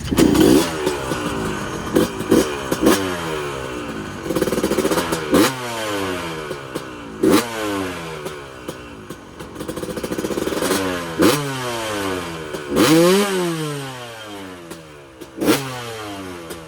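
A 2000 KTM 250 two-stroke dirt bike engine revving hard and falling off again and again as it is ridden, with sharp knocks now and then.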